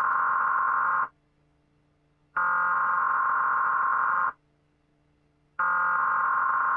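Emergency Alert System SAME header tones: harsh, buzzy digital data bursts about two seconds each with about a second's pause between them. One burst cuts off about a second in, a second sounds in full, and a third starts near the end.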